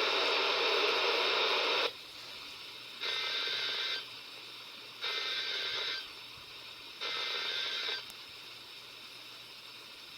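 Weather radio receiver audio: a loud burst of noise for about two seconds, then three short bursts of EAS SAME digital data tones, each about a second long and a second apart, over a low hiss of static.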